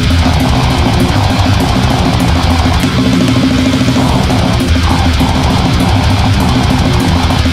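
Heavy metal music: distorted electric guitars and a drum kit playing at a loud, steady level.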